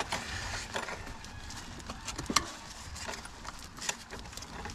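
Irregular clicks and light knocks of gloved hands handling heater hoses and a metal worm-gear hose clamp in a car's engine bay, over a faint low rumble.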